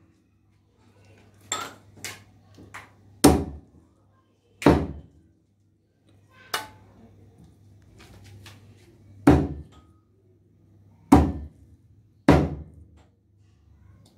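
Heavy knife chopping raw chicken pieces on a wooden log chopping block: sharp chops at irregular intervals, about five loud ones among lighter taps, each with a dull thud of the block.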